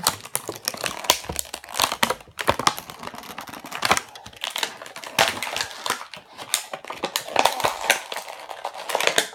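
Plastic packaging crinkling and crackling irregularly as hands work to get a product out of it.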